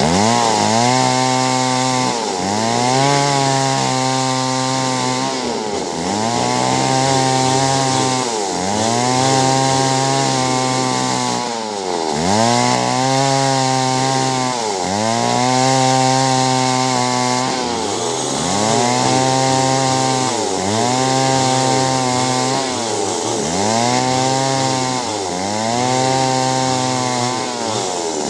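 Two-stroke chainsaw cutting clove tree wood. Its engine pitch dips and climbs back again about every two seconds.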